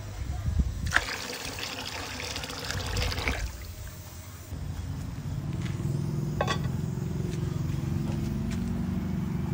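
Water sloshing and trickling in an aluminium pot as rice is rinsed. After that comes a low steady rumble, with one sharp click partway through.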